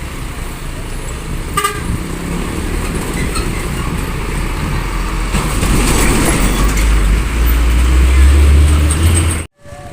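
Heavy road vehicle's engine rumbling as it passes close, growing louder over the last few seconds until an abrupt cut. Right after the cut a multi-tone 'telolet' bus horn melody begins.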